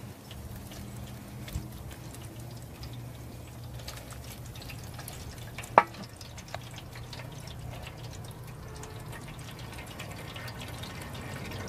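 Hot melted pine resin pouring from a pot through a fine mesh strainer and dripping into a container below, faint over a steady low hum. A single sharp tap comes about six seconds in.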